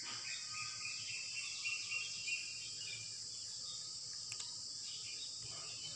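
Steady high-pitched background hiss with no speech, with a few faint steady tones in the first couple of seconds and a brief click later on.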